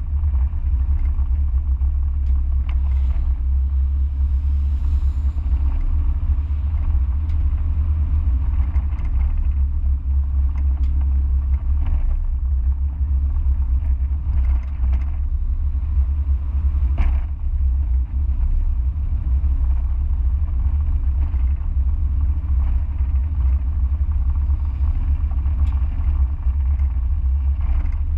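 Mazda MX-5 driving at a steady pace: constant low engine and road rumble, with a few faint knocks, the clearest about two-thirds of the way through.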